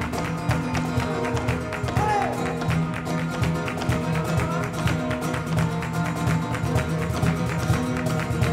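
Live flamenco siguiriya: guitar playing over held notes, with a dense run of sharp percussive taps and hand clapping (palmas).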